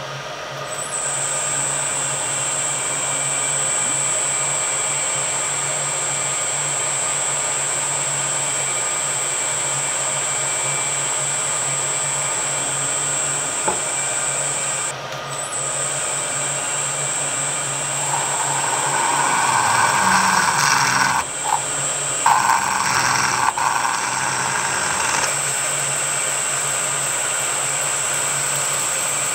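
Milling machine spindle running with a steady high whine and hum while a centre drill and then a twist drill cut the centre hole in a 3 mm CZ121 brass plate. The sound breaks off briefly about fifteen seconds in. A louder, rougher cutting noise comes in from about eighteen seconds for several seconds.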